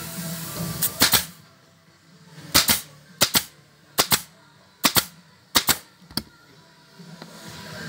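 A MAX upholstery stapler firing staples through upholstery fabric into a chair backrest frame: about seven sharp double-cracking shots, roughly one every 0.7 s, from about a second in until about six seconds in.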